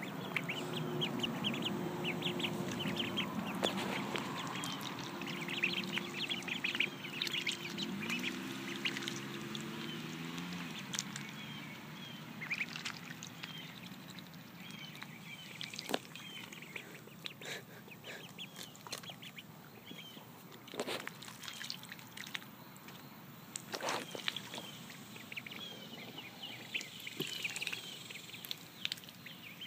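Runner ducklings peeping, many short high chirps throughout, with a few sharp splashes as they swim and peck at floating cabbage. A low hum runs under the first third and fades out around ten seconds in.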